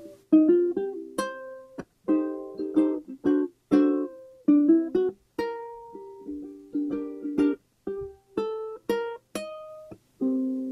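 Background music on a plucked string instrument, playing a run of short chords and single notes that start sharply and die away quickly.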